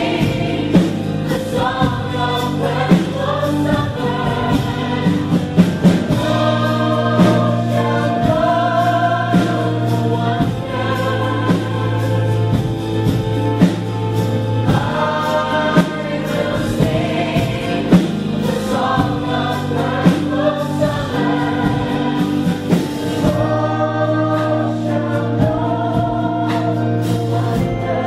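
Music: a group of voices singing together over sustained instrumental accompaniment.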